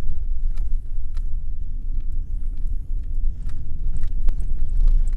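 Vehicle driving on a rough dirt road, heard from inside the cab: a steady low rumble with scattered knocks and rattles over the bumps.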